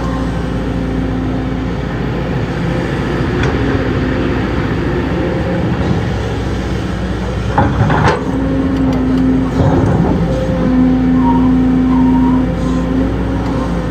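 Heavy diesel earthmoving machinery running steadily at a construction site, with a few sharp knocks or clanks a little past halfway through and again a couple of seconds later.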